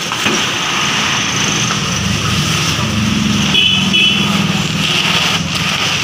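Street traffic with small engines running, one motor growing louder about two seconds in and holding for a few seconds. A brief high tone sounds about halfway through.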